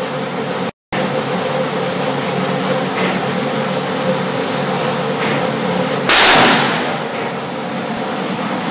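A single AR-15 rifle shot about six seconds in: a sudden loud crack with a short fading tail, over a steady mechanical hum. The sound drops out completely for a moment under a second in.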